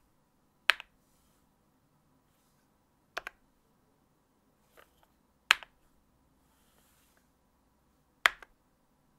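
Idobao custom mechanical keyboard being typed on one key at a time: four separate keystrokes about two and a half seconds apart, each a sharp press click followed closely by a softer release click.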